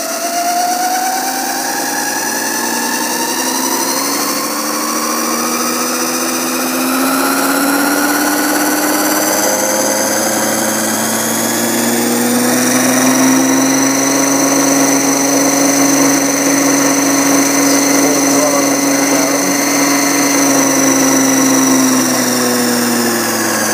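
Sewing machine motor spinning a ping-pong ball on a bearing and shaft assembly. Its whine rises in pitch over about the first twelve seconds as it is sped up, holds steady at full throttle, then dips slightly near the end.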